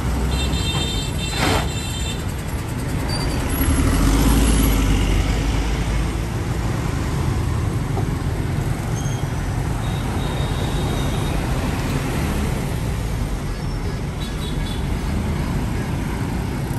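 City bus engines in busy street traffic as buses pull in to a stop and away again, with motorbikes passing. The low engine rumble swells about four seconds in, and there are a few brief high-pitched tones in the first second or so.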